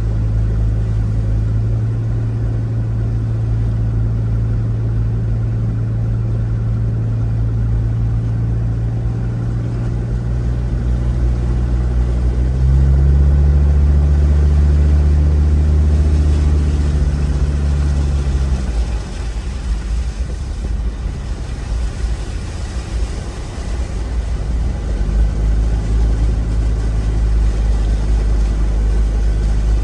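Motor vehicle engines running at low speed with a steady low hum. A louder, deeper engine takes over from about 13 to 19 seconds in, then the sound turns rougher and less even for several seconds before the steady hum returns.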